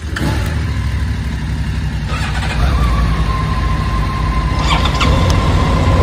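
Motorcycle engine running, a steady low rumble.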